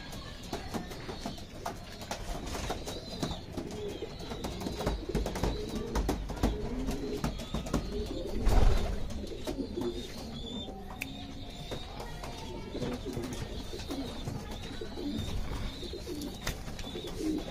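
Domestic pigeons cooing softly and repeatedly, with scattered light clicks and one louder bump about halfway through.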